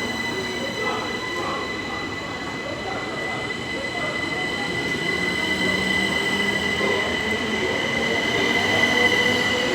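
Electric multiple-unit passenger train at the platform, with a steady high-pitched whine over its running rumble that grows a little louder toward the end.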